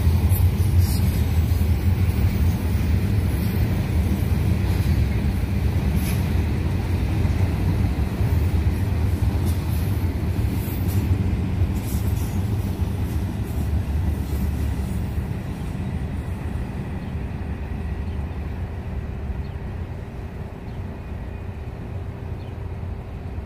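Freight train rolling past, a steady low rumble of the cars on the rails with a few sharp clicks from the wheels, gradually fading over the last third as the train moves away.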